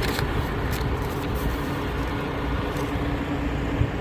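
Steady low hum of a vehicle engine running, with a few faint ticks in the first second or so.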